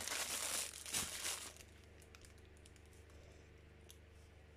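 Thin clear plastic press-seal bags crinkling as a pack of them is handled and set down, for about the first second and a half; then only a few faint ticks.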